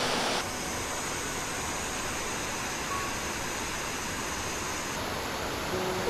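Steady rushing of a waterfall cascading over rocks into a mountain stream. Background music cuts off just after the start and comes back in near the end.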